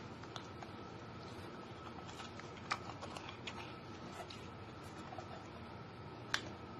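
Clear slime being pulled out of a plastic jar by hand, giving irregular small sticky clicks and pops, with a sharper pop about two and a half seconds in and another near the end.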